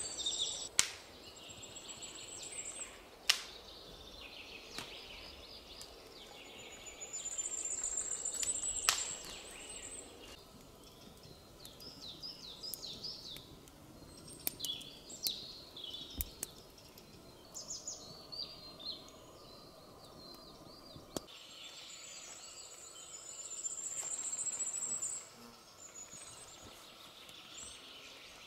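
Forest songbirds singing: a high, thin trilled song comes three times, each about two seconds long, among scattered chirps. A few sharp knocks sound in the first ten seconds.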